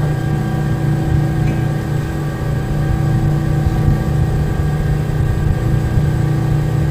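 Steady low hum of a ship's machinery on deck, unchanging, with several fixed tones over a deep drone.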